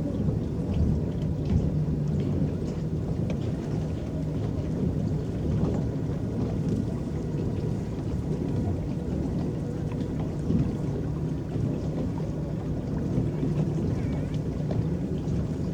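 Small electric paddle boat under way on a lake: a steady low rumble of water churning and lapping at the hull, with a faint even hum underneath.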